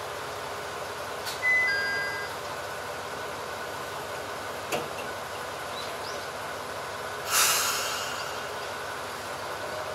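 Ibara Railway diesel railcar standing at the platform with its engine idling, ready to depart. A short electronic chime sounds about a second and a half in, a click comes near the middle, and a loud hiss of released compressed air comes about seven seconds in.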